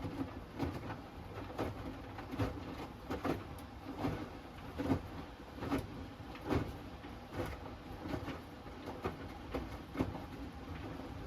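Hoover Axi 10kg front-loading washing machine tumbling a load mid-cycle on its Rapid 30-minute programme. The laundry thumps in the turning drum about once a second over a steady machine noise.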